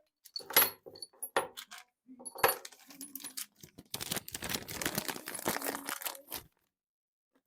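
Small metal tools clinking and rattling as they are handled: a few separate sharp clinks, then about two seconds of continuous clattering that stops suddenly.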